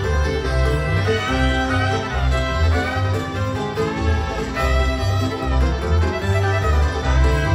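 Bluegrass band playing live: a fiddle leads with a bowed melody over an upright bass and guitar keeping a steady beat, heard from the audience through the concert sound system.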